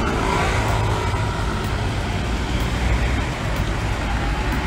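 Road traffic noise on a busy city street: cars driving past with a steady low rumble of engines and tyres.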